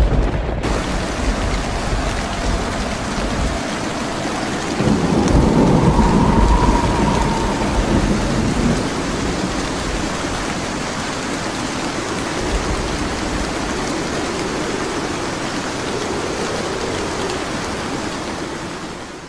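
Steady heavy rain, with a low rumble of thunder swelling about five seconds in and dying away by about eight seconds. The rain fades out at the very end.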